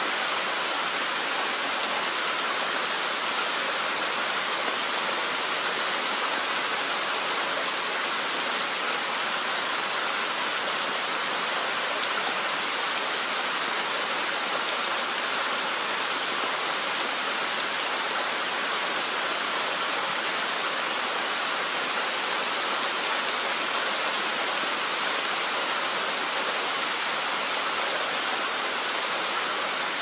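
Steady rainfall from a nature-sounds rain recording: an even, unbroken hiss of falling rain.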